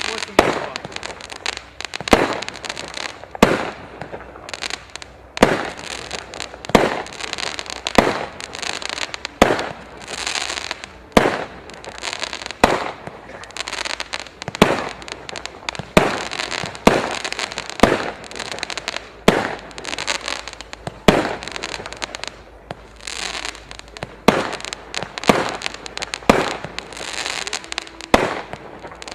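'Exkalibur' multi-shot fireworks cake firing shot after shot, about one sharp bang a second, each followed by hissing and crackling.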